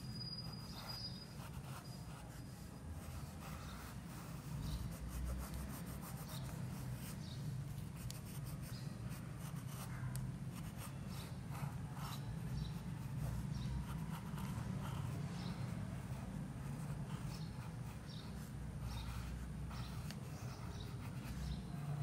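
Pencil scratching on sketchbook paper in many short strokes, over a steady low hum.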